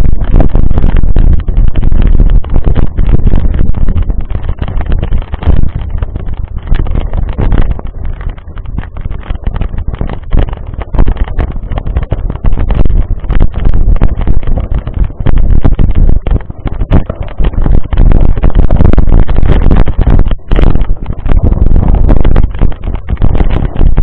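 Loud wind noise on the microphone of a bike-mounted camera, mixed with a constant rapid rattle and knocking as the mountain bike rolls over a loose gravel dirt track.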